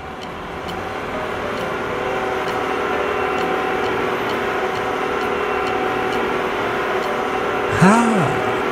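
Cartoon sound effect of a crawler excavator running steadily, a hum with a faint regular ticking. Near the end a short pitched sound glides up and back down, the loudest moment.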